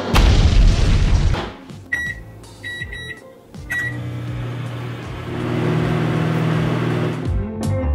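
A Rival countertop microwave oven: a loud clatter of handling for the first second or so, then four short, high keypad beeps as it is set to three minutes. It then starts up with a steady electrical hum that grows louder toward the end.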